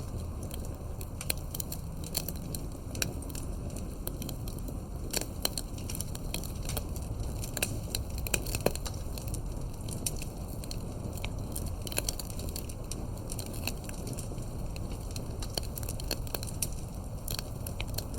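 Wood fire burning: a steady low rumble with frequent sharp crackles and pops, a few louder pops around the middle.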